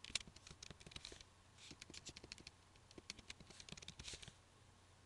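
Faint typing on a computer keyboard: soft, irregular key clicks throughout.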